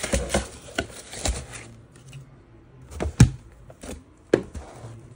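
Packing paper crinkling as stacks of hard plastic PSA graded-card slabs are lifted out of a cardboard box. Then come a few sharp plastic clacks as the slabs knock together and are set down, the loudest about three seconds in.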